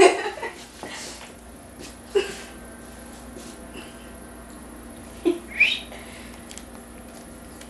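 A small pet bird making a few short calls, one of them rising in pitch about five and a half seconds in, over a quiet room.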